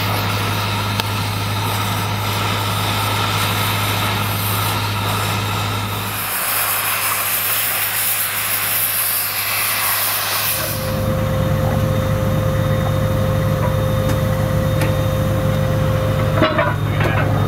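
Oxy-acetylene cutting torch hissing as it cuts through steel rail, over the steady hum of an engine running. About ten seconds in the torch hiss stops and a louder engine drone with a steady whine takes over, with a few metallic knocks near the end.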